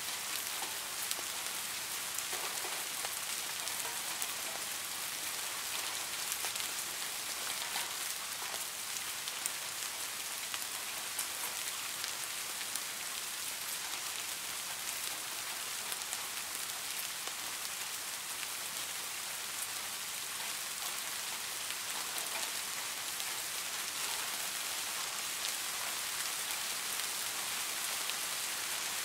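Steady rain falling on a surface, an even hiss with many fine drop ticks.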